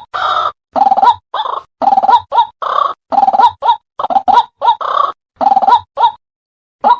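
White-breasted waterhen (ruak-ruak) calling in a fast series of harsh croaking notes, longer rasping phrases alternating with short clipped ones. The calling breaks off about six seconds in and starts again near the end. This is the call used as a lure for trapping the bird.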